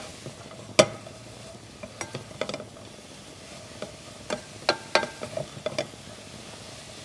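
Wooden spoon stirring sliced leeks and shallots in a stainless steel pot, scraping and knocking against the pot, with a sharp knock about a second in. Under it a faint steady sizzle as the vegetables sweat in oil without browning.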